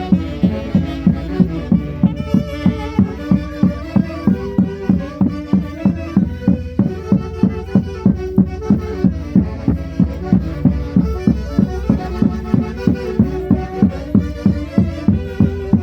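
Andean folk orchestra playing a lively Santiago dance tune, with a steady beat of about three strong pulses a second under a melody carried by wind instruments.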